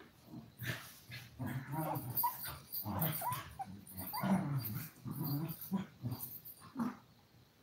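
Five-week-old toy poodle puppies growling and yipping in a string of short, squeaky calls while play-fighting, dying away near the end.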